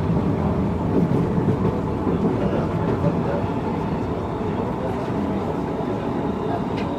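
Steady running rumble of a Medellín Metro train heard from inside the passenger car, with a faint steady whine over it and passengers' voices in the background.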